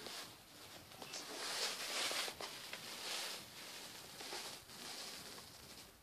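Soft rustling and handling noise from a hand-held camera being carried and swung around, swelling for a couple of seconds about a second in, with a few faint taps.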